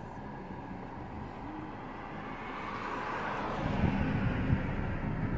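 A vehicle passing close by, its noise swelling and fading about halfway through, followed by a louder low rumble.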